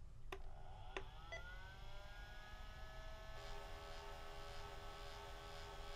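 Tandy 1000 HX's 3.5-inch floppy drive powering up: a couple of clicks, then a faint whine that rises about a second in and holds steady. This is the head drive motor trying and failing to move the head along its worm gear, which is clogged with old, stiff grease.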